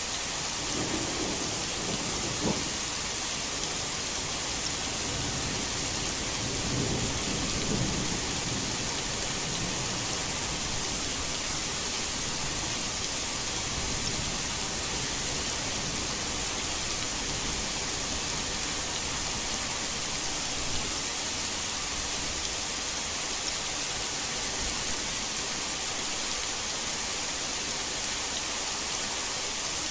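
Heavy rain falling steadily, with thunder rumbling twice: once about a second in, with a sharp crack, and again around seven to nine seconds in.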